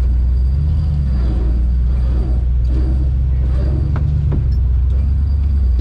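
Competition 4x4 winch truck's engine idling, heard from inside the cab as a loud, steady low rumble.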